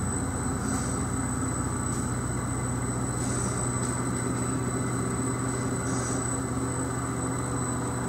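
Quantum WF6000 waterfall topping applicator running: a steady motor and conveyor hum with a constant high whine, and brief higher swishes every second or two.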